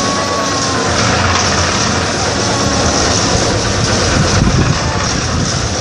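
Engine-driven drum concrete mixer running steadily, its motor and turning drum making a continuous rattling rumble.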